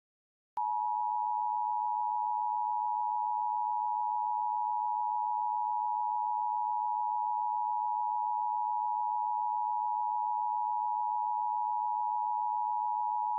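Emergency Alert System attention signal: a steady, unbroken electronic tone that starts about half a second in and holds for about thirteen seconds.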